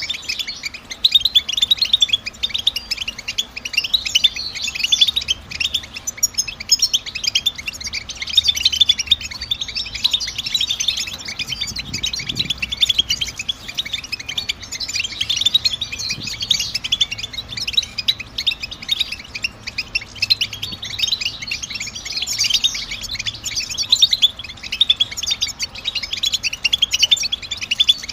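European goldfinch twittering: a dense, unbroken run of rapid, high chirps and trills, the 'batbata' calls used to stir captive goldfinches into song.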